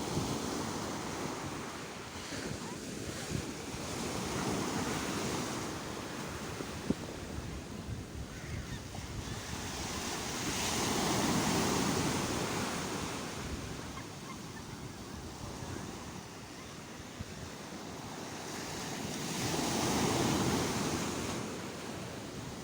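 Sea waves breaking and washing on the shore, the surf swelling and ebbing about every eight to nine seconds, with wind on the microphone.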